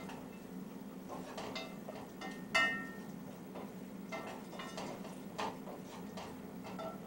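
Dishes and utensils being handled: scattered light knocks and clicks, with one louder clink that rings briefly about two and a half seconds in, over a steady low hum.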